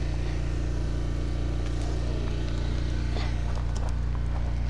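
Steady low mechanical hum, unchanging throughout, with a few faint light clicks from about three seconds in.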